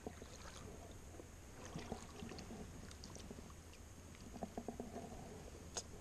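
Faint small splashes and water movement as a hooked perch is drawn in and lifted from shallow river water, with scattered light clicks from the line and hands. There is a short run of clicks a little over four seconds in and a sharp click near the end.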